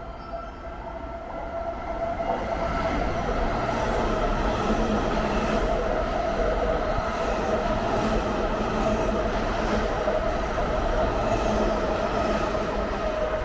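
A train running on rails, its noise building over the first two seconds and then holding steady, with a steady whine through it.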